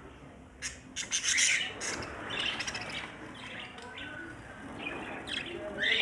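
Budgerigars chirping and chattering in quick, scratchy bursts, starting about half a second in.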